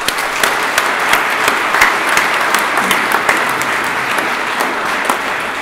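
Audience applauding: many hands clapping together in a dense, steady patter that starts at once and eases off slightly near the end.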